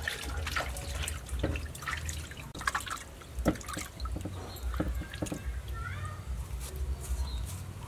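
Wet dripping and sloshing of hands washing food in a metal bowl of water, with small clicks and scrapes of a knife hollowing out the inside of a bitter gourd.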